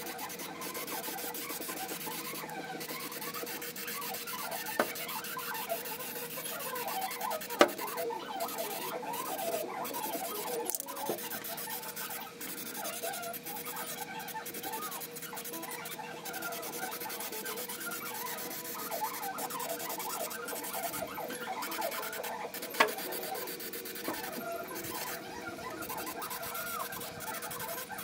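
Aerosol can of undercoating spraying with a steady hiss, broken by a few short pauses, with three sharp clicks along the way.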